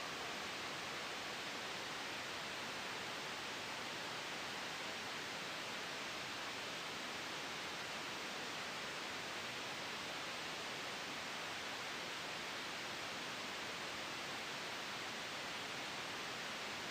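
Soft white noise blended with a gentle wind sound, a steady even hiss that does not change in level.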